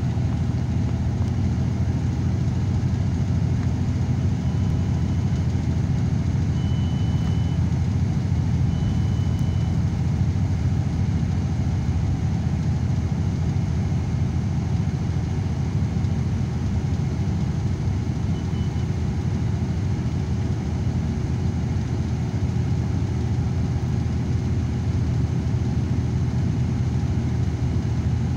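Steady low rumble of engine and tyre noise inside a vehicle cruising at highway speed. A few short, faint high beeps sound between about four and ten seconds in.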